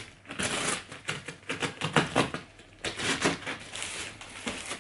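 Packing tape and plastic wrap being cut and torn on a cardboard shipping box, with an irregular run of crackles, scrapes and knocks as the box is handled.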